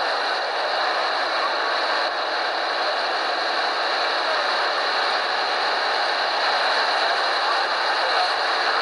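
Steady rushing noise aboard a boat on a river, with no single sound standing out.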